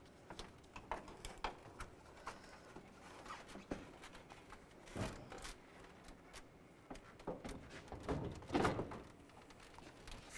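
Plastic bumper and grille parts and a wiring harness being handled and fitted: scattered light clicks and knocks, with a louder, longer scrape about eight seconds in.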